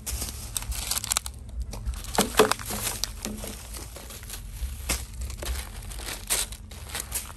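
Plastic bags and litter crinkling and rustling as a stick prods through a pile of trash, in short irregular crackles with the loudest rustle about two and a half seconds in.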